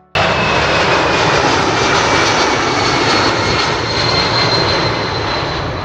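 Turbofan engines of a C-5M Super Galaxy cargo jet, running loud and steady after cutting in abruptly, with a high whine that slowly falls in pitch.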